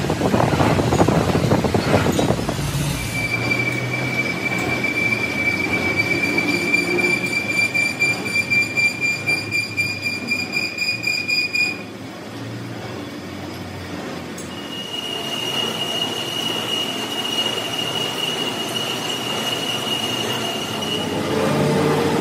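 Metal being cut on a machine tool, with a steady high-pitched tool squeal from about three seconds in to about twelve, pulsing toward its end. After a short drop, a second squeal at a slightly higher pitch follows.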